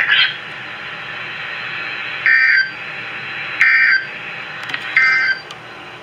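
NOAA Weather Radio Emergency Alert System (SAME) header: three short bursts of warbling two-tone data, about a second and a half apart, over steady radio hiss, heard through a phone's speaker. The bursts are the digital header that opens an emergency alert broadcast.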